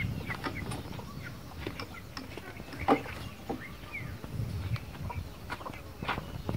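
Chickens clucking: many short calls, one after another, over a low, steady background noise.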